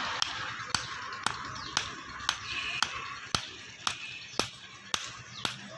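Blacksmith's hammer striking metal on an anvil in a steady rhythm, about two blows a second, over a steady hiss.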